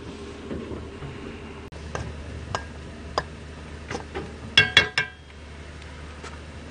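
Metal cookware clinking: a utensil knocking against a frying pan and pots on a portable gas stove. Scattered light clicks lead up to a quick run of loud, ringing metal clinks about four and a half seconds in.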